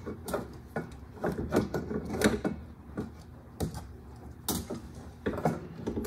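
Snowmobile exhaust muffler being worked into the engine bay by hand: a string of irregular knocks, clunks and short scrapes as it is lifted onto its peg on the chassis cross member and pushed into the rubber belly pan.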